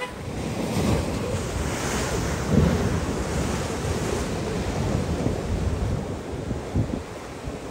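Storm waves breaking against a harbour sea wall: a loud surf roar with hissing spray, the biggest crash about two and a half seconds in. Strong wind buffets the microphone throughout.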